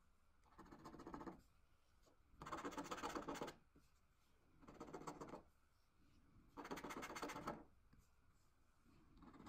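Scratch card's coating being scratched off with a small yellow scratching tool. The scratching comes in strokes of about a second each, about every two seconds, with a new stroke starting near the end.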